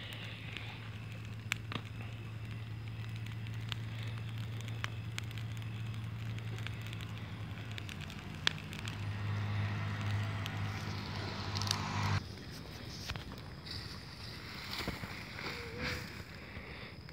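Bonfire of dry leaves and brush burning with scattered sharp pops and crackles, over a steady low motor hum that cuts off suddenly about twelve seconds in.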